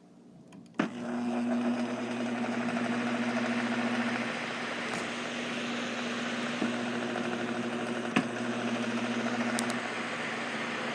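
Old electric fan switched on with a click about a second in, then running steadily: a low motor hum under a rush of air, with another click partway through.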